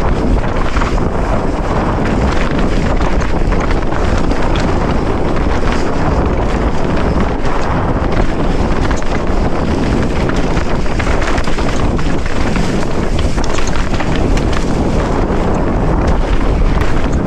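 Wind buffeting the camera microphone while a 27.5-inch Nomad mountain bike runs fast down a dry dirt and rock trail, its tyres rolling over dirt, leaves and stones and the bike rattling with many small knocks over the bumps.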